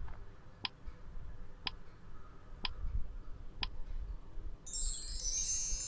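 Quiz countdown-timer sound effect: four sharp ticks, one a second, then a bright, high chime from about four and a half seconds in as the count runs out and time is up.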